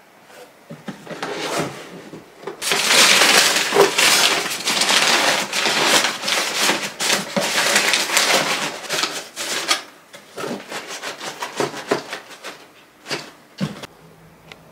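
Thin packing paper being crumpled and stuffed into a cardboard box as void fill. It makes a dense crackling rustle from about two and a half seconds in, thinning out about ten seconds in to scattered crinkles and taps.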